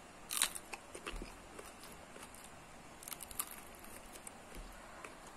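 Biting into and chewing a raw long green chili pepper: faint, scattered crunching clicks, the loudest about half a second in, with more around one second and three seconds.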